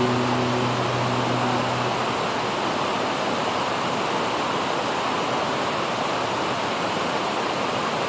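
Steady rushing of water pouring through a river weir's gate. Background music ends about two seconds in.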